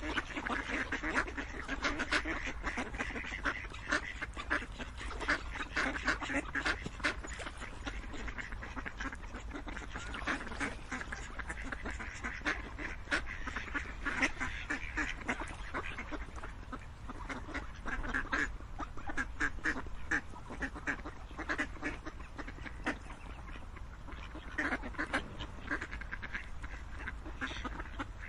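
A flock of ducks quacking, many short calls overlapping with no pause.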